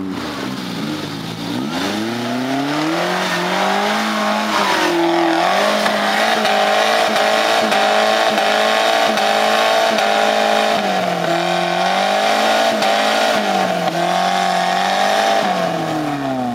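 Suzuki Samurai's engine working hard as it climbs a steep dirt bank. The revs dip at first, rise after about two seconds and hold high with small swings, then fall away near the end.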